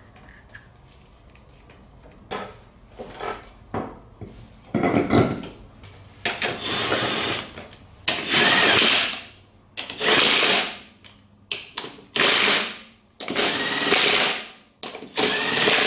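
Impact wrench run in repeated bursts of about a second each, six or seven times, tightening the nuts on an ATV's rear hub. A few light clicks come before the first burst.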